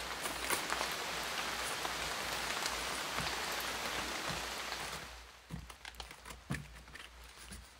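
Dense, steady rustling of plastic sleeves and paper being handled. About five seconds in it gives way to quieter, separate taps and flutters as the plastic-sleeved pages of a ring binder are turned.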